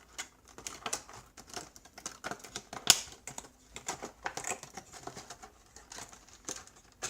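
Hands working at the sealing tape on a small cardboard retail box: a run of irregular clicks, scratches and crinkles from picking, peeling and tearing the tape and handling the cardboard, with one sharp snap about three seconds in.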